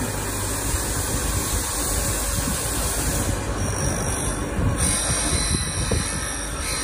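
TX-60A drill bit grinder's motor and wheel running, with the wheel grinding into the point of a large twist drill from about three and a half seconds in: a high screech of abrasive on steel as a notch is ground at the centre of the point.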